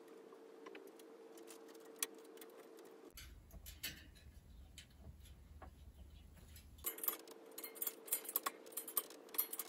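Faint light metallic clicks and ticks from the loose spokes and nipples of a hand-laced bicycle wheel as the nipples are turned up to tension. The clicks become much busier in the last few seconds.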